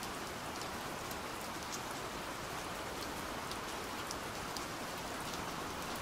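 Steady rain falling, an even hiss of rain with a few sharper drops ticking now and then.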